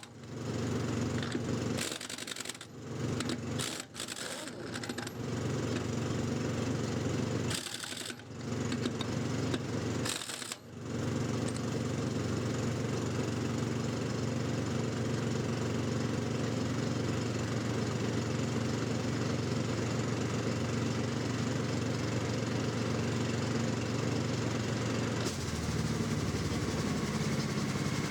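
Harbor Freight Earthquake 1-inch pneumatic impact wrench running free. It starts and stops in four short trigger pulls, then is held running steadily for the rest of the time, with a change in its sound near the end. It is running again after a seized rotor vane was freed.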